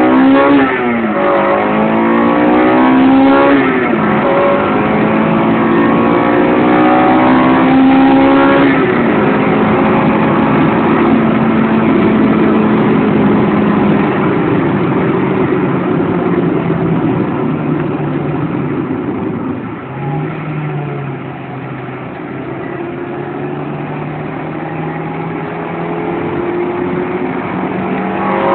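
Stock Honda Integra Type R's B18C 1.8-litre VTEC four-cylinder engine accelerating hard: the note climbs steeply and drops at gear changes about 4 and 9 seconds in. It then holds a steady, slowly falling note at cruise, with a short dip about twenty seconds in, and starts climbing again at the very end.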